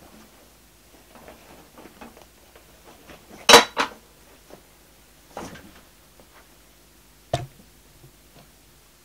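Hand-dismantling a car's folding rear seat: small clicks and rustles of trim and padding being worked loose. A loud double clatter comes about three and a half seconds in, a softer knock near the middle, and a sharp click near the end.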